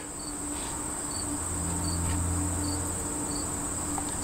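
Insects trilling steadily at a high pitch, with a softer short chirp repeating about every three quarters of a second and a low hum that swells and fades in the middle.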